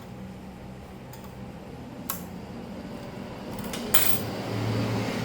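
Light clicks and clinks of tools and plastic laptop parts being handled over a steady low hum. Sharp clicks come about two and four seconds in, and after the second one a rushing noise grows louder.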